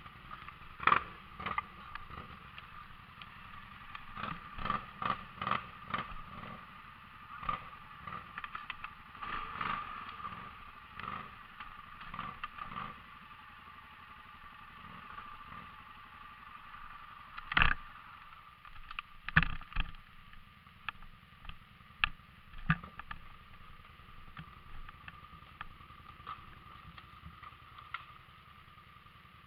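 ATV running steadily, with many irregular knocks and clatter, the loudest about two-thirds of the way through.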